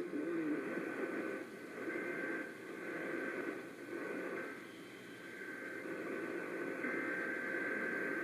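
Radio reception static: a wavering hiss with faint steady whistling tones, typical of a weak station received with interference.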